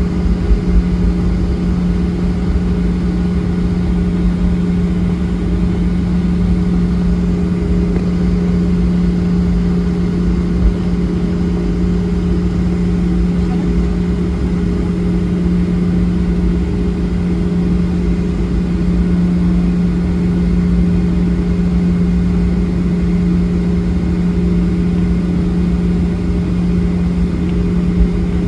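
Boeing 737-900ER's CFM56-7B turbofan engines running at taxi power, heard inside the cabin: a steady drone with a low hum and rumble underneath.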